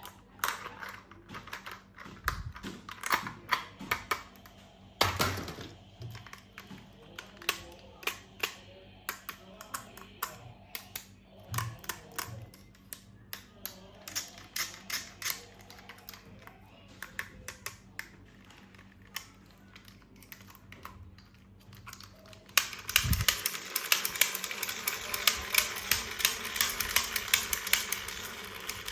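Irregular clicks and taps of hard plastic toy parts and packaging being handled during an unboxing. For the last six seconds or so, a dense crackling rustle joins the clicks, like plastic wrapping being crinkled.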